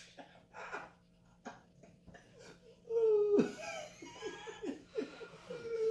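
A person bursts into loud laughter about halfway in, a falling cackle broken into quick breathy pulses, after a quieter stretch with a few light knocks.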